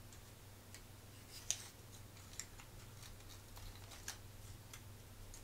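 Light clicks and taps of thin laser-cut wooden puzzle pieces being slotted together by hand, the sharpest click about one and a half seconds in, over a faint low hum.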